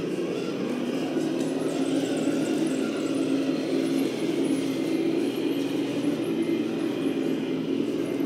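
Electric motor and gear drive of an RC scale crawler truck whirring steadily at low crawling speed, a little louder about a second in.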